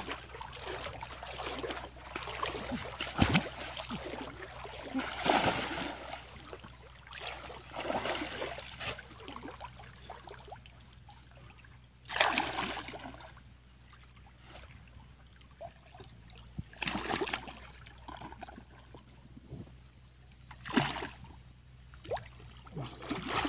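River water splashing and sloshing as a man wades and plunges his arms and body into it, feeling about by hand. The sound comes in irregular bursts, with a few sharp, loud splashes about halfway through and twice more later.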